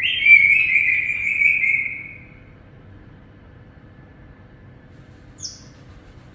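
Pet parrot giving one loud call of about two seconds that sinks slightly in pitch as it fades, followed about five seconds in by one short, high chirp.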